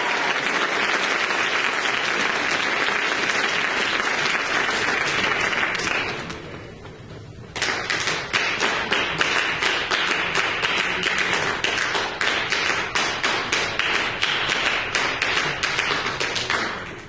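Audience applauding. The clapping dies down about six seconds in, and after a short lull a second round of sharp clapping starts abruptly and runs until near the end.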